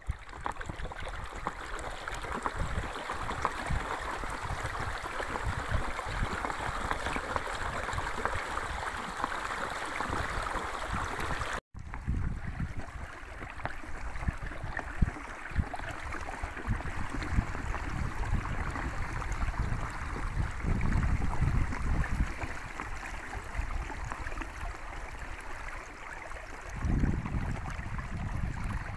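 Water rushing and gurgling along the hull of a pedal-driven inflatable kayak under way. Low rumbles come and go in the second half, and the sound cuts out for an instant about twelve seconds in.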